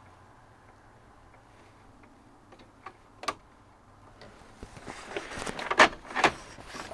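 Small clicks and scraping from a pocket screwdriver and plastic parts as the dash light bar's retaining tabs are pushed in: two sharp clicks about halfway through, then a busier run of clicking and rattling with two loud snaps near the end.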